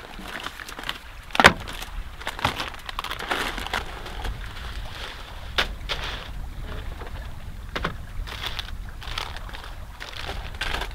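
Snow crunching in irregular crunches, the sharpest about one and a half seconds in, over a low steady rumble of wind.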